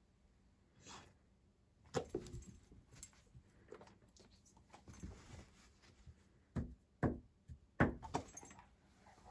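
A beagle moving about on a carpeted floor while waiting for a treat: a series of short, sharp knocks and thumps, the loudest two near the end.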